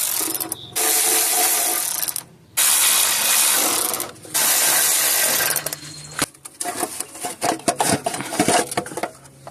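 Power ratchet spinning out small 12 mm bolts from an engine cover in four runs of about a second each. After that come a series of metal clicks and clinks from tools and loose parts being handled.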